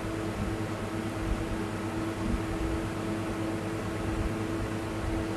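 A steady machine hum, like a fan or small motor running, with a constant low tone over an even hiss.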